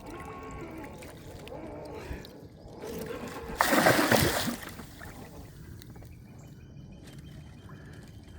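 Water splashing and trickling as a cast net holding a large gar is hauled in. There is one loud splash about three and a half seconds in that lasts about a second.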